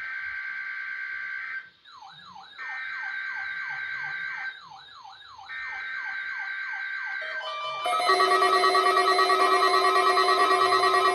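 NOAA Weather Radio Emergency Alert System (SAME) header data bursts for a Required Weekly Test: three buzzing bursts, each about two seconds long, with falling chirps between them. About eight seconds in, several weather radio receivers start sounding their alert tones together, louder and continuous.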